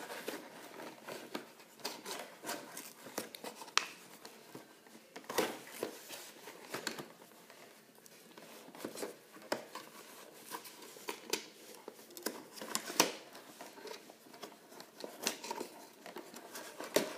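Hands untwisting twist ties from a toy's cardboard packaging: irregular small clicks, scrapes and rustles against the cardboard.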